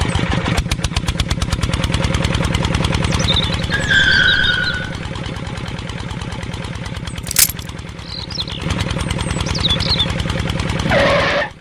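Small engine running with a fast, even chugging beat, with a sharp click about halfway through. Birds chirp briefly a few times over it.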